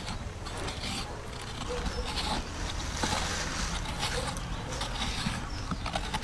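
Metal coconut scraper with a wooden handle scraping the soft white flesh out of a husked coconut shell: a run of rough scraping strokes with a few sharp clicks near the end, over a steady low hum.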